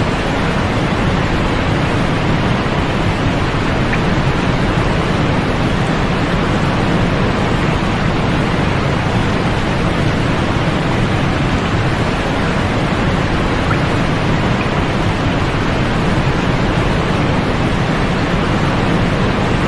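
White noise for sleep: a steady, even rushing hiss, deep and full at the bottom and softer toward the top, that never changes.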